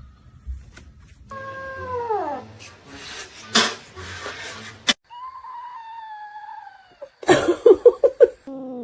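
Cats yowling: a drawn-out call that falls in pitch, then a long held yowl, then a loud, rapid stuttering yowl near the end.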